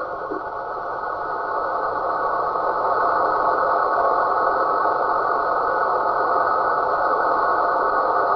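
A steady, dense, rushing buzz of a radio signal heard through a receiver's audio. It dips briefly at the start, builds back over the first few seconds, then holds even with no rhythm.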